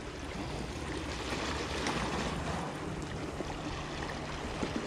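Sea water washing against the rocks in a steady, even wash.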